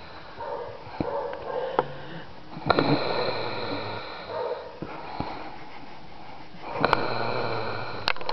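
A man snoring: two long snores, each lasting over a second and starting abruptly, about four seconds apart, with softer breathing sounds before them.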